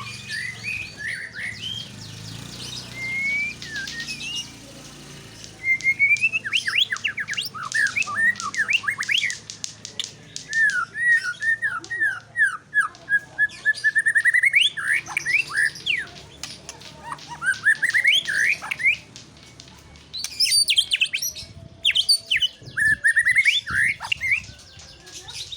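White-rumped shama singing: phrases of clear whistles and fast trills of rising and falling notes, softer for the first few seconds, then in loud bursts a few seconds long with short pauses between them.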